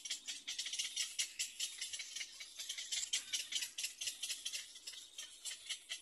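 Little egret chicks giving a fast, dry rattling chatter of clicks, their begging call to the parent for food.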